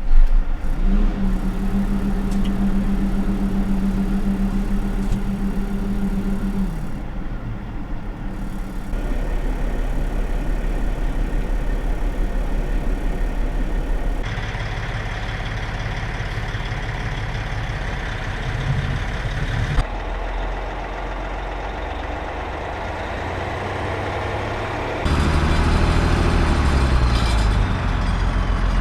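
Diesel engine of an Oshkosh 8x8 military truck running, heard as a string of separate recordings that change abruptly several times. A steady tone in the engine sound stops about seven seconds in, and near the end the engine note falls as the revs drop.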